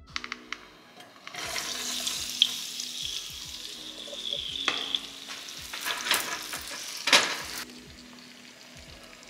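Seasoned baby potato wedges sizzling as they fry in oil in a nonstick pan, stirred with a spatula. The sizzle swells about a second in and drops back near the end, with a sharp knock of the spatula just after seven seconds.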